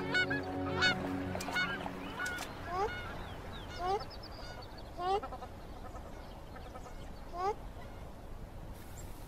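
Geese honking: a busy flurry of short calls over soft sustained music tones in the first two seconds, then single rising honks spaced a second or more apart, ending a little before the end.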